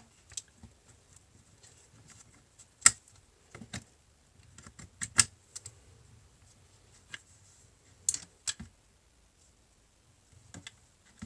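Irregular sharp clicks and clinks of small metal door-lock parts being handled and set down as the lock is taken apart by hand.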